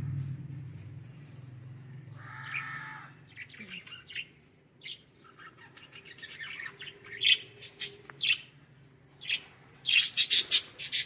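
Pet Australian parrots chirping and squawking: scattered short, sharp chirps that come thicker as it goes on, ending in a rapid run of loud chirps, with one longer call early on and a low hum under the first few seconds.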